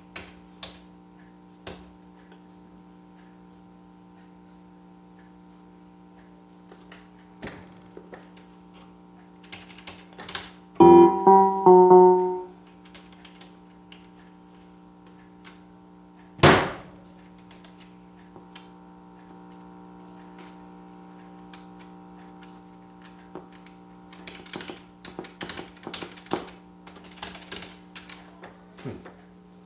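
Casio Casiotone CT-360 electronic keyboard sounding a steady held tone throughout, with a quick loud run of a few notes about eleven seconds in. Its buttons click as they are pressed, with one loud knock a few seconds after the notes and a flurry of clicks near the end, while no rhythm pattern plays: the rhythm section is not working.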